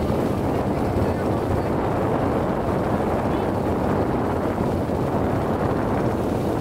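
Steady running noise of a small boat's motor under way, mixed with wind buffeting the microphone.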